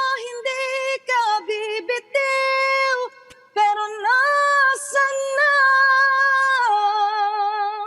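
A woman singing solo and unaccompanied, in phrases with vibrato, then holding one long note through the second half.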